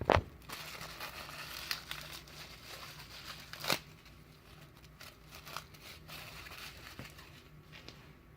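Packaging crinkling and rustling as it is handled, with a sharp knock right at the start and another a little under four seconds in, then fainter, scattered rustles.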